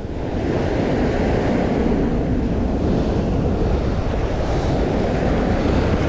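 Sea surf washing up a pebble beach in a steady loud rush, with wind buffeting the microphone.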